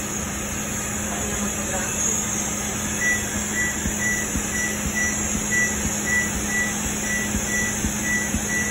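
Laser hair-removal machine beeping in a fast, even rhythm, a little over two high beeps a second, starting about three seconds in as the handpiece fires its pulses. A steady low hum runs underneath.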